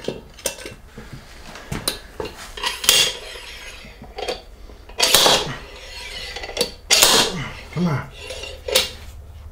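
Metal hand tools clinking and scraping as a bearing puller is worked to pull a stuck bearing out of a Jeep NSG370 six-speed's rear transmission housing. Scattered sharp clicks with a few short, louder scrapes.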